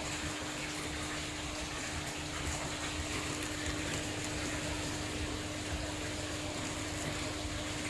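Large aquarium's filter pump running: a steady rush of circulating water with a constant low hum.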